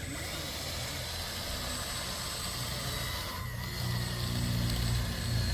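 Heavy construction machine's engine running steadily, growing louder about four seconds in.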